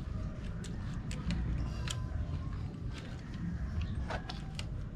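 Scattered sharp clicks of a hand ratchet driver being worked back and forth on the bolt of a motorcycle side stand, over a steady low rumble.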